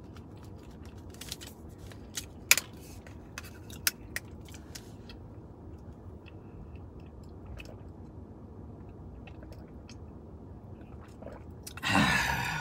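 Plastic bottle of Arizona green tea being opened and drunk from: a few sharp clicks from the twisting cap in the first few seconds, then quiet drinking. A short loud burst of noise near the end.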